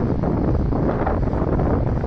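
Wind buffeting the microphone: a loud, even, low rumbling noise.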